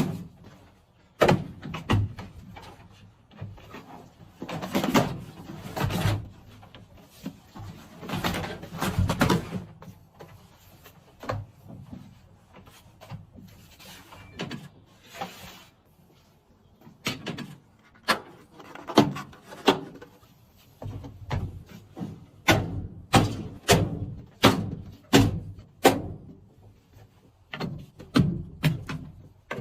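Car parts and trim being handled: a run of separate sharp knocks, clicks and clatter, with some rustling between them. In the second half the clicks come closer together, about one or two a second.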